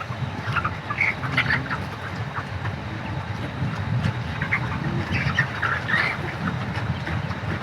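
A flock of broiler chickens calling at once, many short overlapping chirps and squawks, over a low steady rumble.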